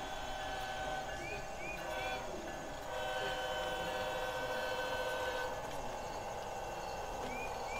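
Sound-equipped HO-scale model diesel locomotive running, its onboard speaker playing a steady diesel engine sound that grows louder for a couple of seconds in the middle. Two quick sets of three short high chirps sound, one early and one near the end.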